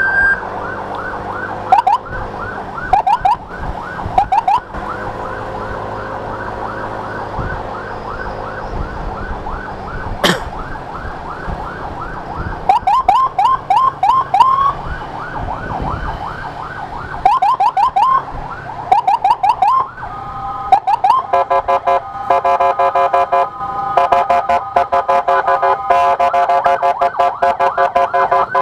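Electronic siren sounding a fast yelp, short rising whoops several a second. About 21 seconds in it switches to a stepped warble of several alternating tones.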